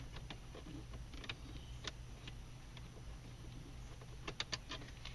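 Faint scattered clicks and ticks of a screwdriver backing a small Phillips screw out of a car's plastic center console trim, with a quick run of clicks a little after four seconds, over a faint steady low hum.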